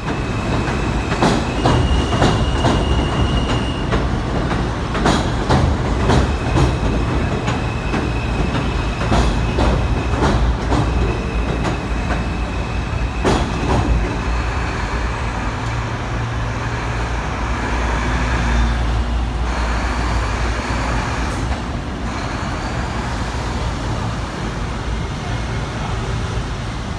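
N/W subway train running on the elevated steel structure overhead: a loud low rumble with clattering wheel clicks and a thin high wheel squeal through the first half, easing off toward the end.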